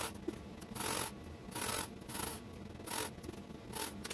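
Sewing materials being handled on a work table: short, irregular rustling and rubbing strokes, roughly one a second.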